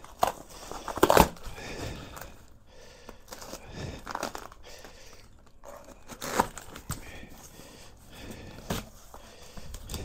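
Packing tape and shipping labels being cut and ripped off a large cardboard box, then the cardboard flaps pulled open: a string of irregular scraping and tearing sounds, the loudest about a second in.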